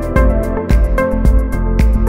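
Instrumental background music with a steady drum beat, about two beats a second, under sustained melodic notes.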